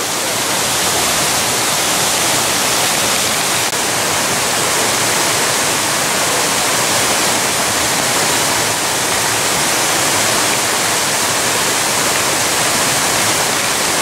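Steady rushing of the Bigăr waterfall.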